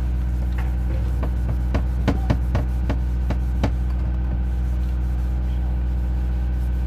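Whiteboard eraser rubbing across the board and knocking against it, a string of short taps and scuffs in the first half, over a steady low hum.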